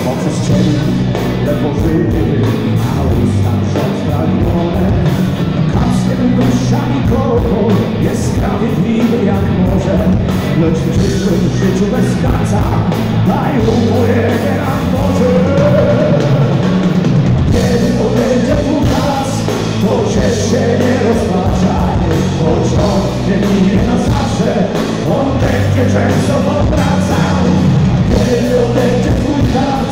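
Rock band playing live and loud, with electric guitars, bass and drums.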